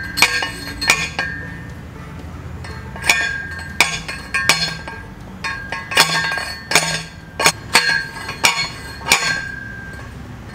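Manual T-post driver slamming down onto a steel T-post, about a dozen clanking metal strikes with a ringing tone, in short runs with brief pauses between, as the post is pounded into the ground.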